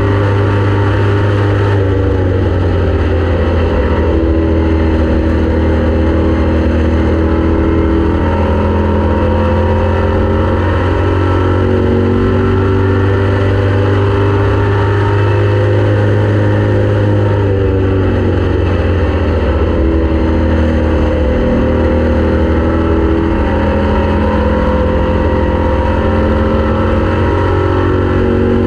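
Race car engine running hard, steady and loud, its pitch dipping and climbing back several times.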